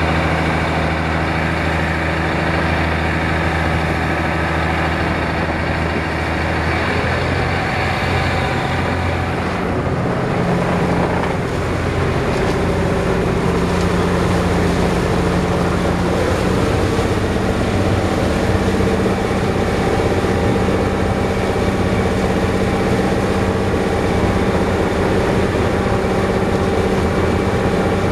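Inboard diesel engine of a Yanmar 52-foot boat running steadily underway, with water rushing past the hull and churning in the wake. The engine note changes about seven seconds in and again around eleven seconds in.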